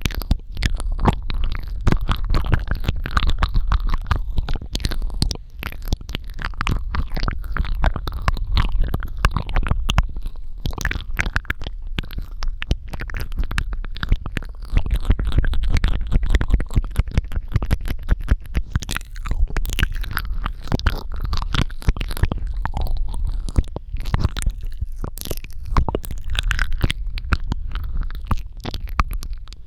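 Close-miked ASMR mouth sounds: dense, rapid wet clicks, pops and smacking with crackling saliva, continuous with brief dips.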